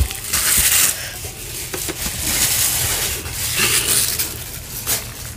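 Plastic wrap crinkling and rustling in several spells as a ball of garri fufu is unwrapped by hand.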